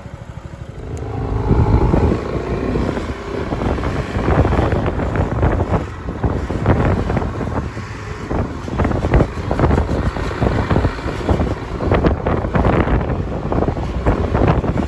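Wind buffeting the microphone in irregular gusts while riding pillion on a motorcycle, with the bike's engine running underneath. The noise rises about a second in as the motorcycle pulls away.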